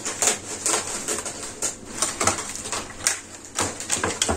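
Irregular quick clicks and crackles of dry güllaç pastry sheets being handled and laid into a dish of sweetened milk.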